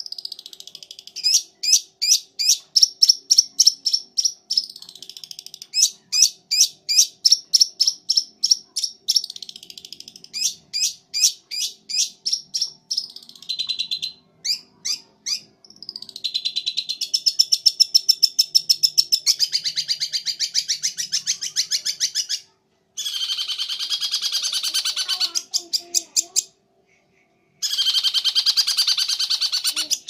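Long-tailed shrike (cendet) singing loudly: a run of sharp, high repeated notes about three a second, then faster trills and dense chattering phrases in the second half, broken by two short pauses.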